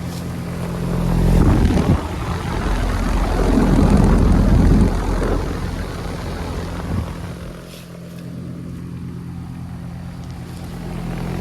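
Goodman R32 heat pump outdoor unit running in heat mode: a steady electrical hum from the compressor under the rushing of the condenser fan. The rushing swells louder between about one and five seconds in, then eases.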